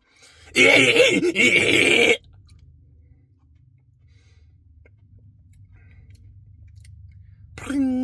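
A man's loud, rough, drawn-out groan while eating ice cream, about a second and a half long. Then a faint low steady hum, and a short hummed 'mm' near the end.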